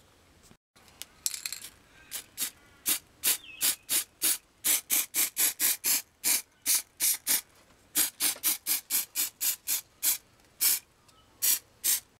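Aerosol can of black spray paint sprayed in many short, quick hisses, about three a second, starting about a second in.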